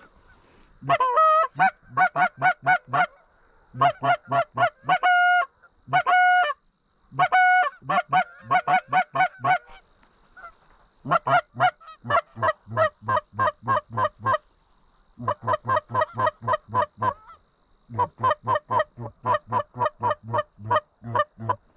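Canada goose calls blown by hand: fast strings of short clucks, about four or five a second, in runs of a few seconds with short pauses, and a few longer honks that break upward in pitch, calling to incoming geese.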